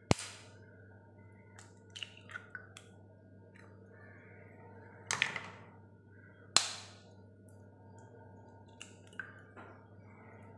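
Eggs being cracked into a ceramic bowl: sharp taps of eggshell on the bowl's rim, the loudest right at the start, about five seconds in and again a second and a half later. Small clicks and crackles of shell come between them.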